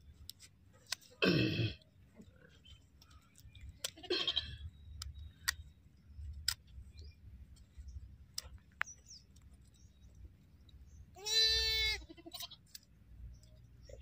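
Sheep bleating from the flock: a clear, drawn-out bleat near the end, and shorter, rougher bleats about a second in and about four seconds in. Scattered sharp clicks come in between as hoof shears snip at a sheep's hoof.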